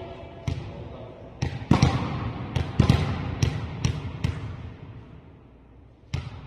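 Volleyball being struck and hitting the floor during play: a quick run of sharp slaps and thuds bunched in the middle, with one more near the end.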